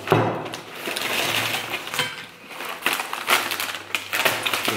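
A potato chip bag crinkling and rustling as it is handled, in a run of irregular crackles.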